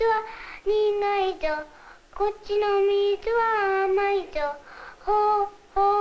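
A young Japanese girl singing a children's song about a firefly in Japanese, her voice alone, in short phrases of held notes with brief pauses between them.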